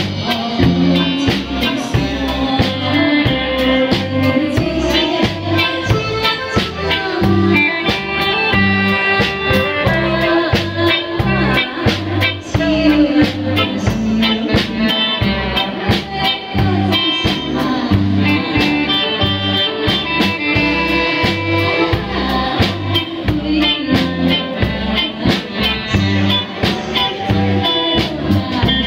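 A woman sings a Taiwanese Hokkien song into a microphone, backed by a live band of electric bass, electric guitar, saxophone and keyboard playing over a steady beat, amplified through a PA.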